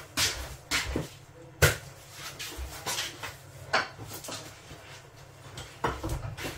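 Kitchen clatter: a handful of separate knocks and clinks of dishes, utensils or a cupboard being handled, the sharpest about a second and a half in.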